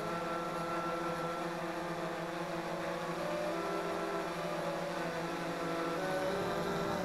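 Background orchestral music: long, held string chords, with the notes changing every few seconds.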